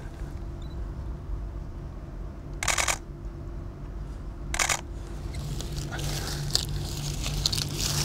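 Digital SLR camera shutter firing in continuous mode: two short rapid bursts of clicks, the first about two and a half seconds in and a shorter one about two seconds later, over a steady low hum.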